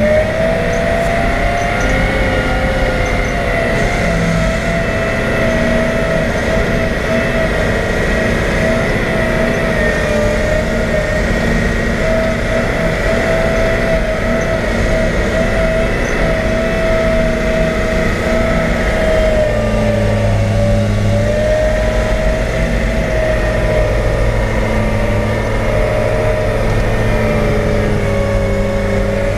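Caterpillar 769C off-highway haul truck's V8 diesel engine running under load, heard from inside the cab, with a steady whine over the engine note. About twenty seconds in the note shifts and a deeper hum comes in.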